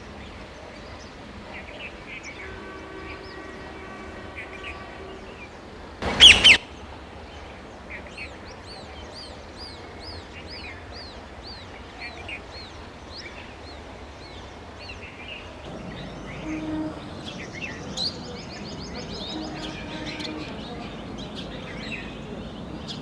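Rose-ringed parakeet giving one loud, harsh screech about six seconds in, amid steady chirping and repeated whistled notes from other birds.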